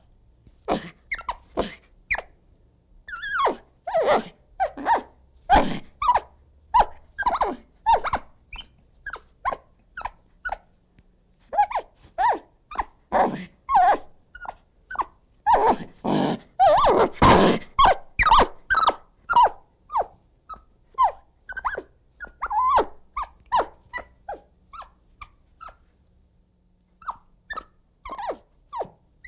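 An agitated monkey giving a rapid series of short, pitched cries and chatters with quiet gaps between runs, and a denser, louder run of calls around the middle.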